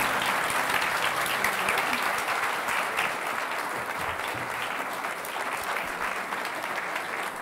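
Audience applauding at the end of a song, the clapping slowly dying down.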